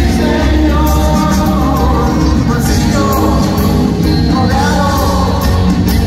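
Live rock band playing: drums, electric guitars and an upright double bass under a male lead vocal singing phrases over the band, with a heavy, steady bass line and cymbals, heard through the arena's PA from the audience.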